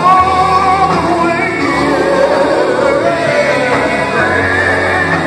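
Live gospel music: a male lead singer with his band and backing singers, holding a long, wavering note at the start and then singing on.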